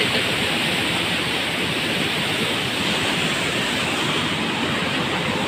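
Muddy floodwater rushing fast over and along a concrete spillway, a steady churning rush of water.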